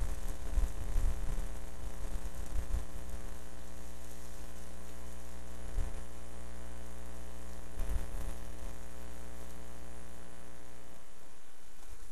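Steady electrical mains hum, with a few low thumps in the first three seconds and again around six and eight seconds in; the deepest part of the hum drops out near the end.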